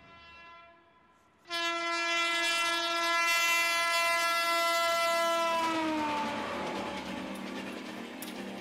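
Locomotive horn on an electric passenger train: one long steady blast, faint at first and loud from about a second and a half in. Its pitch drops near the middle as the train passes, and the rush of the running train carries on after it.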